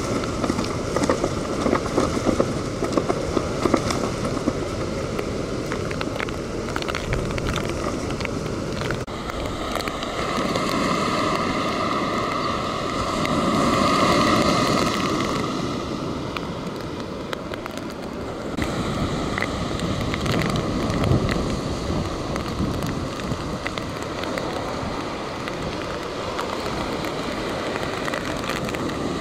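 Strong hurricane outer-band wind and rain buffeting the microphone, with waves breaking on the beach. In the first several seconds a red warning flag flaps and snaps in the gusts.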